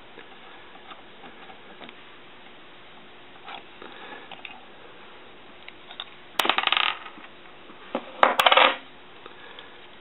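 Small brass and copper parts of a model steam engine's feedwater heater clinking as they are handled: two sharp metallic clinks, about two seconds apart, each ringing briefly, over faint handling noises.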